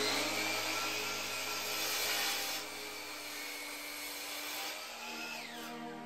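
DeWalt sliding compound miter saw running at full speed and crosscutting a white oak board, its motor whine held steady over the cutting noise. The cutting noise drops about two and a half seconds in, and the whine falls away as the motor winds down near the end.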